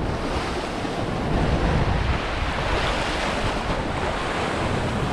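Sea waves washing against the rocks with wind buffeting the microphone: a steady rushing noise with a low rumble that swells a little in the middle.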